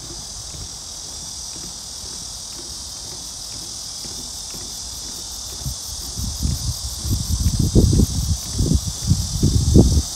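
Steady, high-pitched chirring of an insect chorus. From about six seconds in, low irregular rumbling grows louder over it and is the loudest sound near the end.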